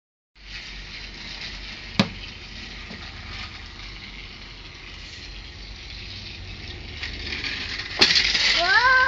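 Battery-powered Thomas TrackMaster toy train running along its plastic track, a steady whirring rattle of the small motor and wheels, with a single click about two seconds in and a louder rush of noise near the end. A high call that rises then falls comes in just before the end.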